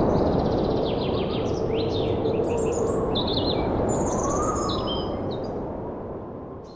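Birds chirping and trilling over a steady rushing noise, with a faint whine that slowly rises and falls in pitch. Everything fades out near the end.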